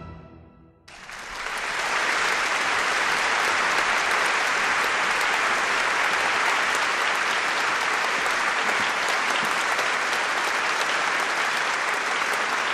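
Audience applause that starts abruptly about a second in, after the last notes of the music die away, and then continues steadily and evenly.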